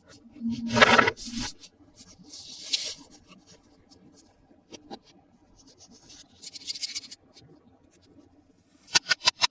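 Hands handling toy packaging: rustling and scraping, with a quick run of sharp taps near the end.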